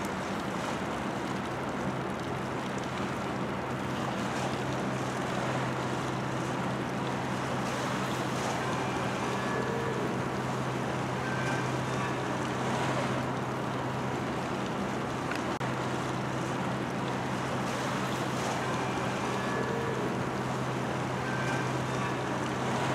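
Steady low hum of a moored car-carrier ship's machinery, over a constant rushing background noise.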